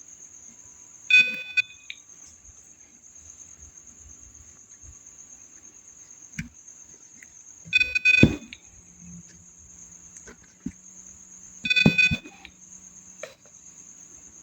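Piezo buzzer on an Arduino sounding three short beeps, each about half a second long, about a second, eight seconds and twelve seconds in. Faint clicks fall between the beeps, and a steady high-pitched whine runs underneath throughout.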